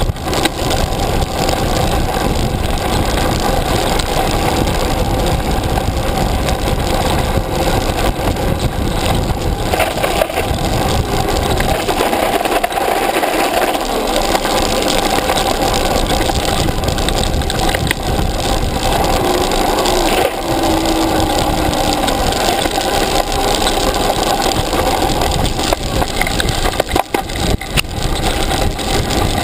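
Continuous riding noise from a vehicle-mounted camera going down a rough dirt and gravel track: a steady loud rush with rattling and small knocks over the bumps.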